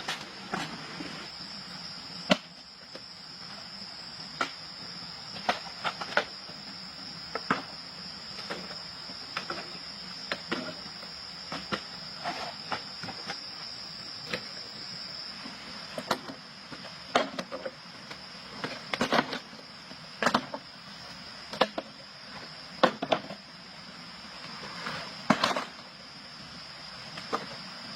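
Insects droning steadily at a high, even pitch, with irregular sharp clicks and knocks scattered throughout, some in quick clusters.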